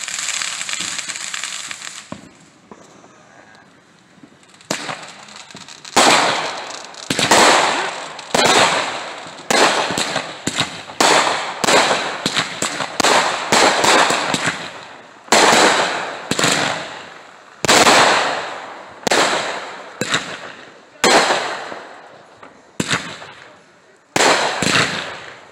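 A ground-level firework hissing and dying away, then after a short lull a consumer multi-shot firework cake firing. It gives a long run of sharp bangs about once a second, each shell bursting with a fading tail.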